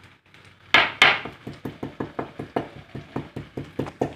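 Rapid, even knocking of a kitchen utensil, about five knocks a second, starting with two louder knocks about a second in.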